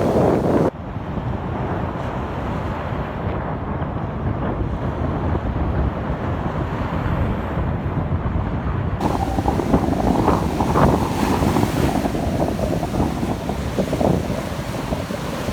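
Wind buffeting the microphone at the seashore, a steady rumbling rush with sea surf underneath.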